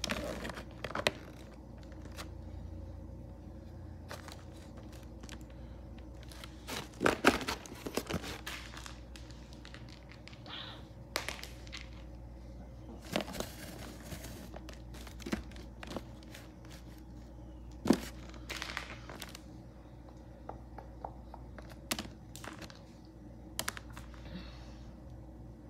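Plastic toy animal figures knocking and rustling against each other as a hand rummages through a box of them: scattered irregular clicks and clatters, loudest in a cluster about seven seconds in and a single sharp knock about eighteen seconds in.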